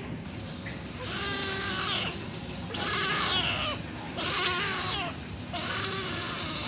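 Kitten meowing loudly, four long meows of about a second each. It has been left outside by its mother and is crying to be let in.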